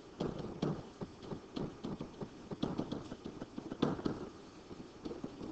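Stylus writing on a tablet: irregular short taps and scratches of the pen tip as words are handwritten, with a sharper tap nearly four seconds in.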